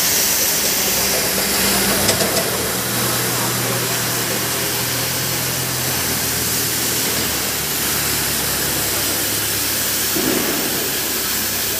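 Oxy-fuel cutting torches on a CNC profile gas cutting machine hissing steadily as they cut through steel plate, over a low, steady machine hum. A few short clicks about two seconds in.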